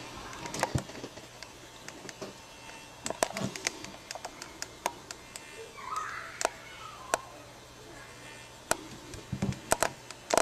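Scattered faint clicks and taps over a low steady hum, with a brief murmur about six seconds in.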